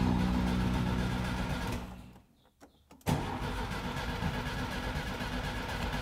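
Background music fades out over the first two seconds. After a brief silence, about three seconds in, a Volkswagen Beetle's air-cooled flat-four is cranked over and turns with a steady, rough churn without catching. The car is one that has broken down.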